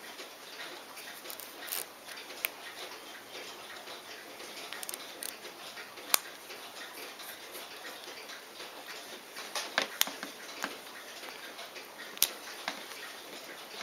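Scattered small clicks and taps from fingers handling a Poljot Signal wristwatch, with a quick cluster of several clicks about ten seconds in, over a steady hiss.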